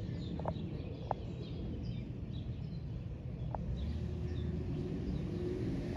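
Steady low rumble of an aircraft flying high overhead, which sounds like a military plane, with birds chirping a few times.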